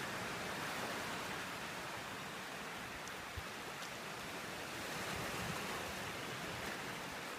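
Sea surf washing onto a beach: a steady rushing that swells about a second in and again around five seconds in as waves break.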